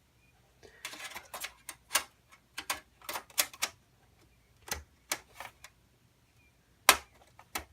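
Irregular clicks and knocks of cables and metal parts being handled and moved inside a desktop computer case, the loudest knock near the end.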